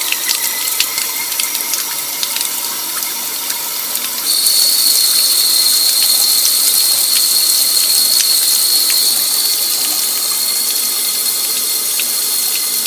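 Water running steadily and flowing away down a laundry drain that has just been cleared of a clog, now draining freely. The flow gets louder about four seconds in, with a thin high whistle over the rush of water.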